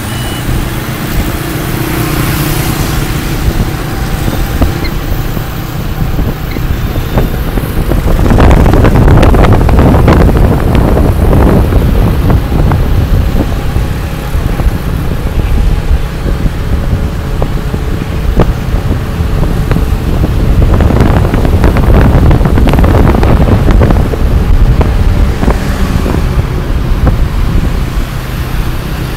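Wind buffeting the microphone on a moving motorbike, over the rumble of its engine and the surrounding street traffic. The wind grows louder about a third of the way in and again a little past two-thirds.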